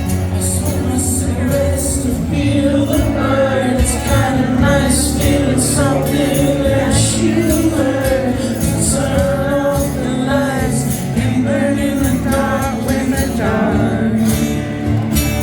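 Live acoustic rock band playing: strummed acoustic guitar under a sung lead vocal, with a steady beat of high, jingling percussion.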